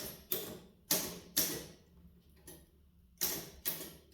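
Keys of a 1908 Herald 7 upstrike typewriter being typed: about seven irregular, sharp clacks, each with a short fading ring.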